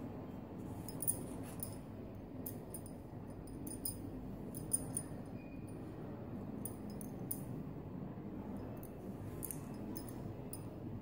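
Soft handling of knitted wool fabric and yarn while a seam is hand-sewn with a needle, with scattered small sharp clicks, about nine in all, over a steady low background noise.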